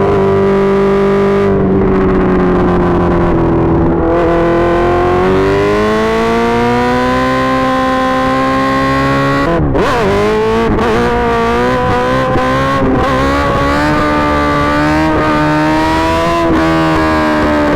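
Suzuki GSX-R1000 inline-four running loudly through an M4 GP slip-on exhaust, its pitch dipping slightly, then climbing slowly. About ten seconds in the note breaks briefly, then settles to a fairly steady pitch.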